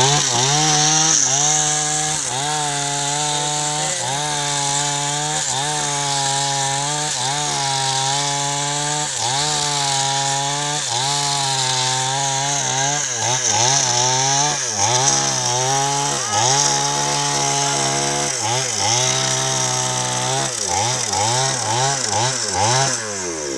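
Two-stroke chainsaw cutting a log, its engine note rising and dipping about once a second as the chain bites. The dips come quicker and more unevenly in the second half, and the engine note falls away just before the end.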